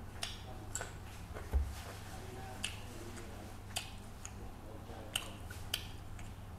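Close-up eating sounds: scattered wet clicks and smacks from chewing and from fingers squishing rice and curry in the bowl, over a steady low hum, with a dull thump about a second and a half in.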